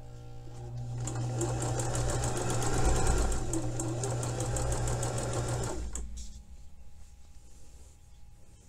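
Electric domestic sewing machine stitching a hem, picking up speed in the first second, running steadily with rapid needle strokes, then stopping about six seconds in.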